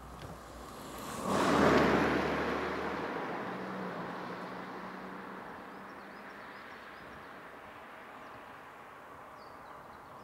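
A car passing by: a sudden rush of tyre and engine noise about a second in that fades slowly as it moves off.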